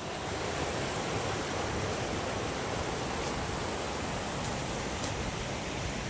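Steady rush of a mountain valley stream flowing over rocks.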